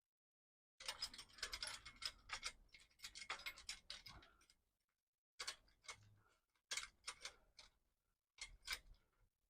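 Steel quick-release bicycle rack being unclipped and lifted off by hand without tools: a run of light metallic clicks and rattles for a few seconds, then three short bursts of clicking.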